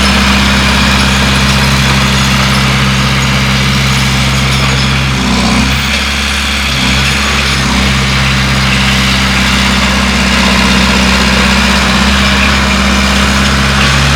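Bulldozer's diesel engine running steadily under a dense mechanical hiss, its note wavering briefly about halfway through.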